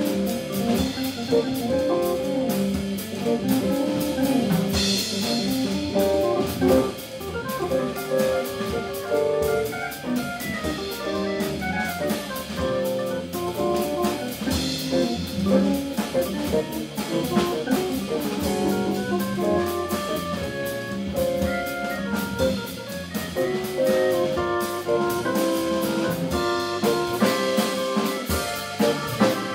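Live jazz from an organ trio: organ, guitar and drum kit playing together, with cymbal crashes about five seconds in and again about fifteen seconds in.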